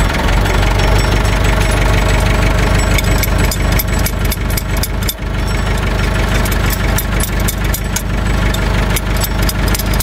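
Massey Ferguson MF 188 tractor's four-cylinder diesel engine idling steadily, with sharp clicks over it in the second half.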